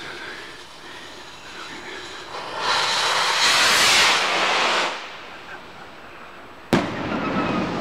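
Quasar firework rocket launching: a loud rushing hiss for about two and a half seconds as it takes off, then a single sharp bang near the end as it bursts high up.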